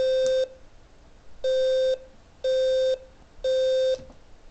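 Arduino fire alarm controller's speaker sounding its 520 Hz alarm tone in half-second beeps, in the three-beep temporal pattern used as a fire evacuation signal: one beep, a pause of about a second, then three beeps a second apart. The beeps stop about four seconds in.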